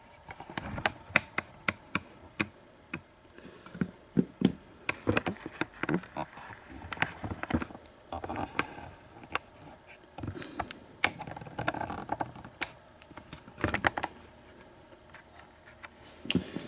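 Irregular light clicks, taps and knocks of a doorknob lock and small tools being handled and set down on a work surface, with short pauses between.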